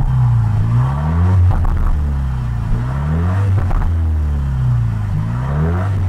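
Jaguar F-Type's 2.0-litre turbocharged four-cylinder engine idling through an aftermarket Ragazzon exhaust with its valve open, heard close at the twin tailpipes: a steady, deep low drone.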